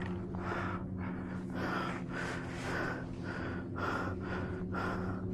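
A hiker's heavy, rapid breathing close to the microphone, about two breaths a second: out of breath from the steep uphill climb.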